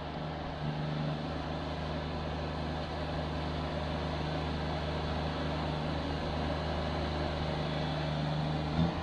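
Subcompact diesel tractor engine running steadily, its hum swelling briefly about a second in, with a short knock near the end.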